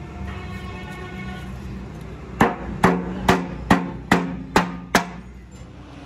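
Seven sharp hammer blows on metal, evenly spaced at about two a second, each with a brief ring, over a steady low hum.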